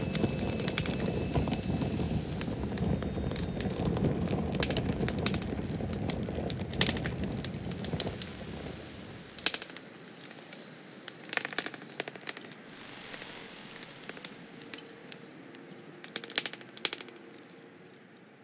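Wood fire crackling and popping over a low rushing noise; about halfway through the rush drops away, leaving scattered crackles and pops that fade toward the end.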